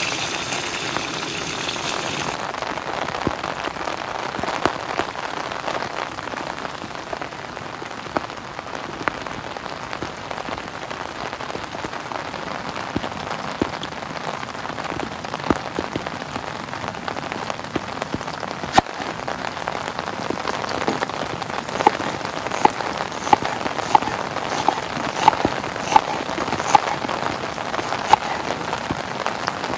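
Steady rain falling, with a frying pan of patties sizzling over the gas stove that cuts off about two seconds in. Near the end, a run of regular knife knocks on a wooden cutting board, about one every three quarters of a second, as an onion is chopped.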